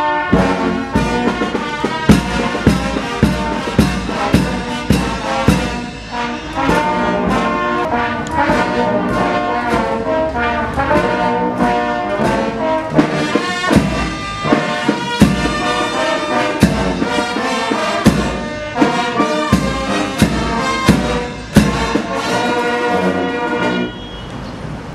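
Military brass band with trumpets, trombones and regular drum beats playing a piece, ending about a second before the close.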